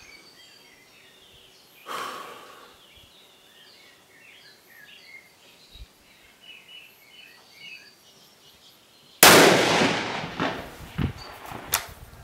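A Sauer S 101 Classic XT bolt-action rifle in .308 Winchester fires one shot about nine seconds in: a single loud report with a short echo. Sharp clicks follow near the end as the bolt is worked to eject the case. Small birds chirp faintly before the shot.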